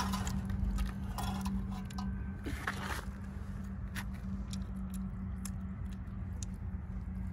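Light rustling and scattered small clicks from handling, over a steady low hum. The rustles bunch in the first few seconds, then give way to a few sparse single clicks.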